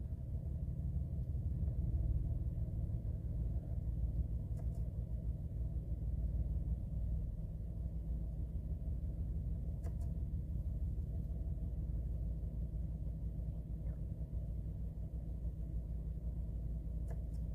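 A steady low rumble inside a stationary car, with four faint clicks a few seconds apart as the instrument-cluster display menus are stepped through.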